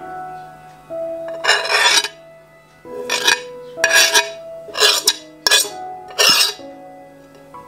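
A utensil scraping against kitchenware in six short strokes, the first one longer, over background music with held notes.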